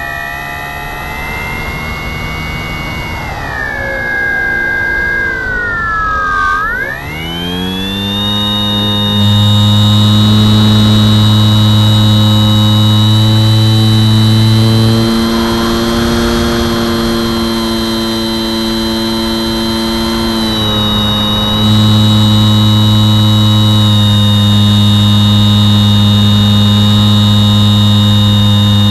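Brushless electric motor and propeller of a Bixler 2 model plane, heard from a camera on board: the whine slides down in pitch as the motor slows over the first several seconds, rises quickly about seven seconds in, and then holds steady at high speed, easing off slightly in the middle.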